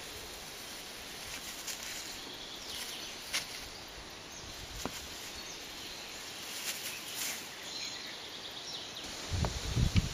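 Quiet outdoor ambience with faint rustling and a few soft clicks as kittens move through long grass. About nine seconds in, a louder low rumbling with uneven bumps starts on the microphone.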